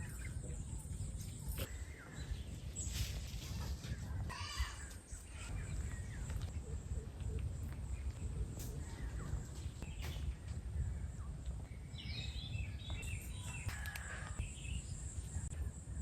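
Outdoor rural ambience under a steady low rumble, with a few bird calls, one about four seconds in and a longer run of calls from about twelve seconds.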